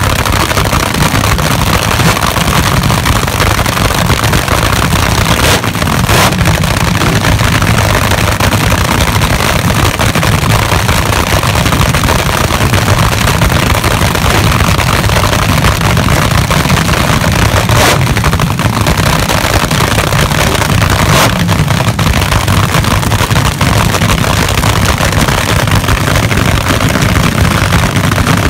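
Drag-race engines running loud on open headers while flames shoot from the pipes, with a few sharp cracks along the way.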